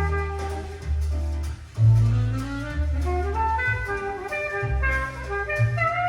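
Jazz played from a vinyl record on a turntable through a tube amplifier: a reed melody over deep, sustained bass notes.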